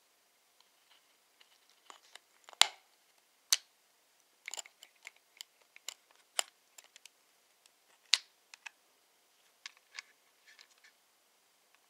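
Irregular small, sharp clicks and taps of hand tools and laptop parts being handled during a laptop repair.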